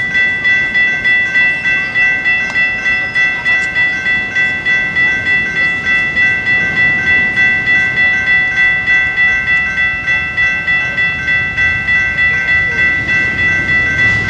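Electronic railroad crossing bell ringing rapidly, about three strokes a second, after starting up suddenly. This is the grade-crossing warning for an approaching train while the crossing gate comes down.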